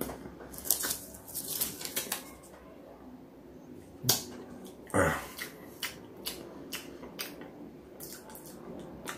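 Mouth noises of a person eating dry flour off his fingers: scattered wet clicks and lip smacks, with a short throaty sound about five seconds in.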